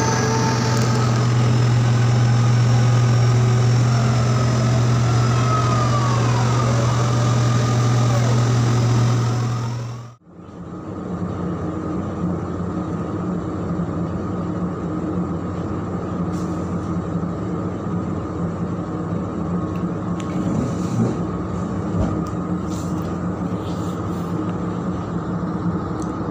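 A ship's deck crane's machinery runs with a loud, steady low drone, with whines that glide up and down as it works. About ten seconds in this cuts off abruptly, and a steadier, quieter drone of the ship's machinery, heard indoors, takes over.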